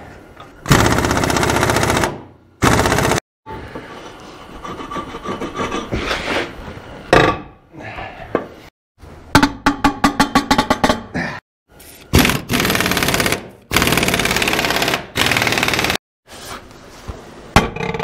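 Impact wrench hammering in several bursts of a second or two on a stuck, rounded-off bolt that will not break loose. Around the middle there is a quick run of metal knocks, with scraping of tools on metal between the bursts.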